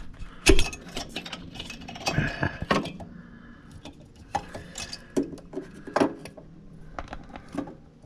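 Irregular sharp clicks and knocks of the plastic overload relay and start capacitor unit on a GE refrigerator compressor being gripped and tugged by hand. The loudest knock comes about half a second in, with a few more around two seconds and fainter clicks after.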